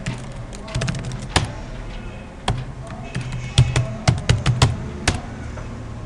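Keystrokes on a computer keyboard, typing a password in irregular clicks. There are a few single key presses early, then a quick run of keystrokes between about three and a half and five seconds in.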